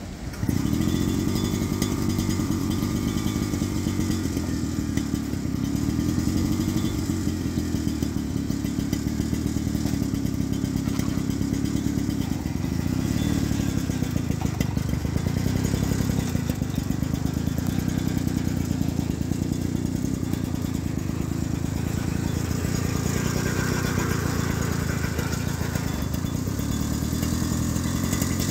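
Petrol engine of an Agria 4000S walk-behind tiller comes up sharply about half a second in, then runs steadily with small rises and falls in speed.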